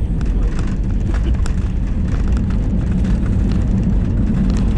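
Airbus A321 heard from inside the passenger cabin during landing: a loud, steady low rumble of engines and airflow, with many small cabin rattles and clicks on top.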